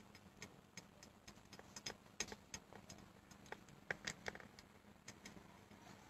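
Faint, irregular clicks and taps of a camera being handled and repositioned, a few a second, slightly louder about two and four seconds in.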